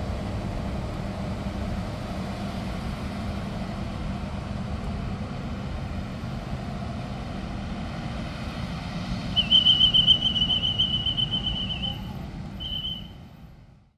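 Steady low rumble of a train, with a shrill trilled whistle blown twice about nine seconds in: a long blast of a couple of seconds, then a short one. The sound fades out near the end.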